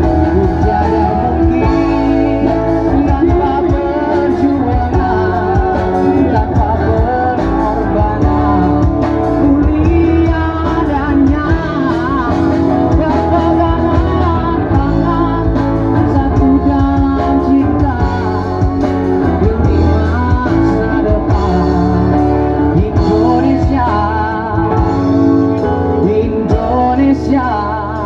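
A band playing a song, with a singer over guitar and a steady bass line.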